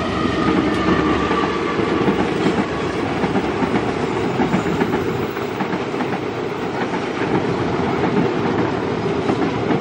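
Passenger train coaches rolling past close by, their wheels making a loud, steady clatter on the rails.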